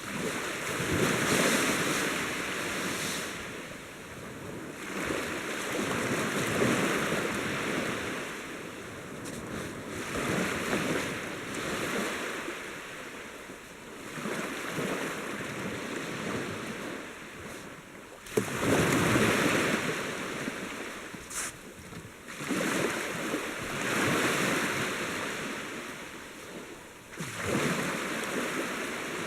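Sea waves washing in and falling back, swelling and fading about every four to five seconds, with wind. There is one sharp knock about two-thirds of the way through.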